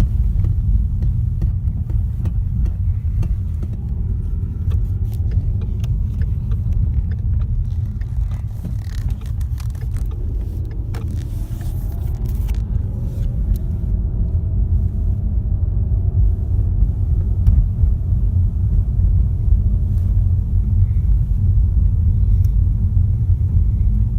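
Road noise inside a 2015 Ford Mustang at speed: a steady low rumble from the low-profile tyres on rough asphalt, with a faint wavering hum through the middle. The hum is the whining or humming "like when something's turning" that the owner suspects comes from a wheel bearing or axle.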